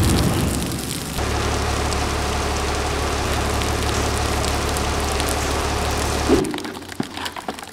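Steady rain falling on a wet hard surface, an even hiss with a low rumble underneath. It starts abruptly about a second in and cuts off sharply near the end, leaving a few faint clicks.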